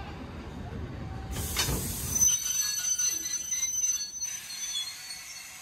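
Vintage passenger carriages rolling slowly along the track. A low rumble gives way about two seconds in to a high, steady wheel squeal that lasts about two seconds, then the sound eases.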